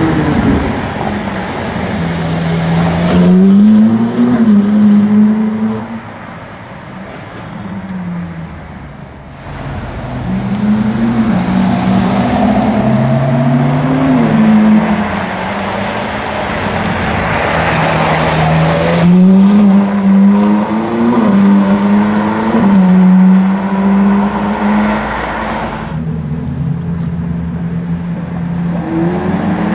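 Ferrari sports car engines, a 458 Italia's V8 among them, accelerating hard past in several separate passes. The engine note climbs in pitch and drops back again and again as the cars change up through the gears.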